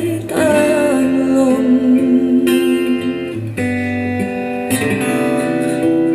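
A Thai song: a sung phrase trails off in the first second, then guitar-led instrumental music plays on with a steady beat.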